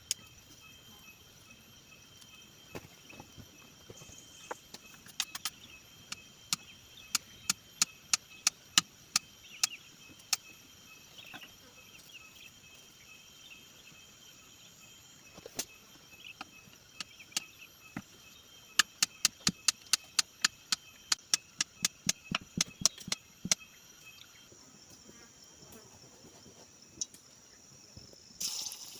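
Two runs of sharp knocks, two to three a second, the first about seven seconds in and the second about twenty seconds in, over a steady high insect drone.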